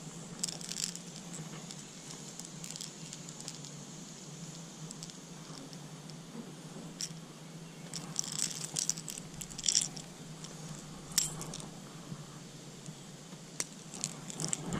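Small fishing gear being handled: scattered light clicks and rattles in irregular clusters, most of them between about 8 and 11 seconds in, over a steady low hum.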